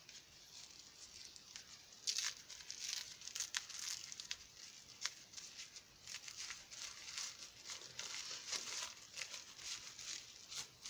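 Packing wrap crinkling and tearing as a small item is unwrapped by hand. It is faint for the first two seconds, then comes in irregular sharp crackles and snaps.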